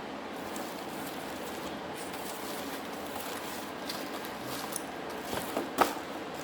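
Hand blender attachments and packaging being handled over a steady background hiss, with one sharp click near the end.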